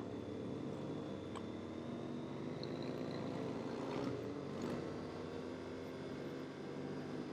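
Motorcycle engine running steadily on the move, its pitch drifting slightly, with a few faint clicks about a second and a half in and again around four to five seconds in.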